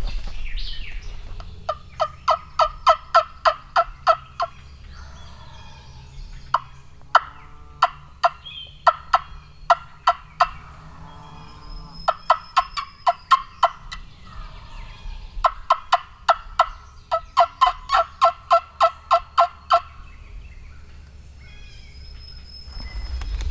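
Wild turkey calling: four runs of rapid, evenly spaced notes, about five a second, each lasting two to four seconds.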